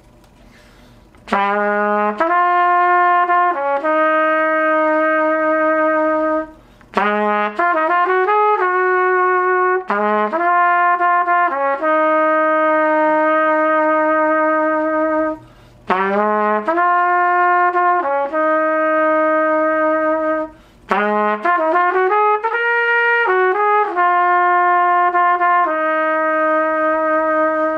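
Vintage Martin trumpet played with a Bach 7C mouthpiece, starting a little over a second in. It plays a melodic passage in four phrases of quick runs and long held notes, with short breaths between the phrases. The opening phrase is repeated about halfway through.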